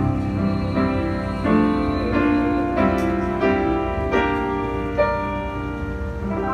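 Piano playing the closing bars of a ballad: a slow series of sustained chords, struck about every half second to second, with no voice over them.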